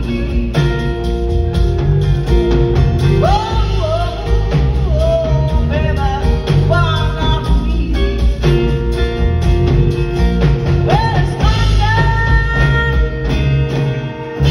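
Live band playing a song with a lead vocal: guitars, bass and drum kit, heard through the hall from the audience seats.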